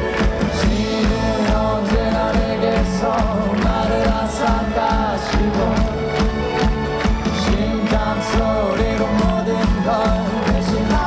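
Live rock band playing: electric guitar and drum kit with a male lead vocal singing over them, with a steady beat.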